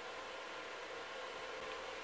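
Steady hiss of a fan running in the background, with a faint steady hum underneath.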